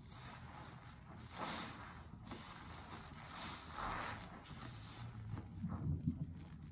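Wet squelching of a soapy sponge squeezed again and again in a sink full of dish-soap suds. Two louder fizzing hisses come as the foam is pressed out, and lower sloshing squelches near the end as hands work down into the suds.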